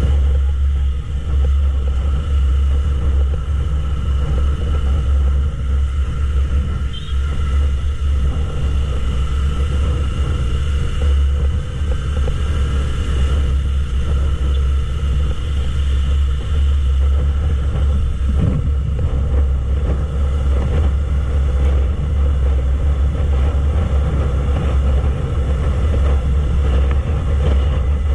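Yamaha YZF-R3's parallel-twin engine and the bike's motion while riding at steady speed: a loud, steady low rumble with no letup.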